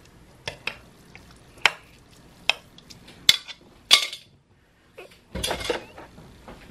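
Kitchen clatter: about six sharp clicks and knocks of utensils and dishes, then a short rustle as dry lasagna noodles are handled in their cardboard box near the end.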